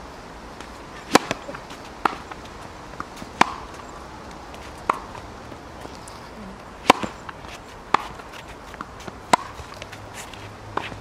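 Tennis balls struck by racket strings and bouncing on a hard court: a string of sharp pops about once a second, the loudest about a second in and around seven seconds in.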